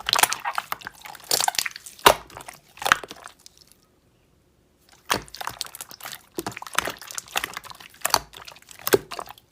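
Slime being pressed and stretched by hand, giving wet squishing with many sharp clicks and pops as air pockets burst. The sound stops for about a second midway, then starts again.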